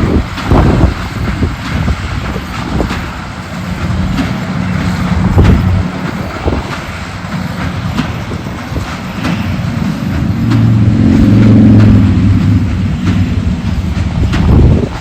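Heavy harvest machinery running in the field: a low, steady engine drone with scattered knocks and clatter, the engine swelling loudest about ten to twelve seconds in.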